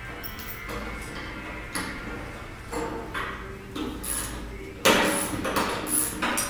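Metal clanks and knocks from tools and steel parts being handled, several separate strikes at uneven spacing, the loudest about five seconds in.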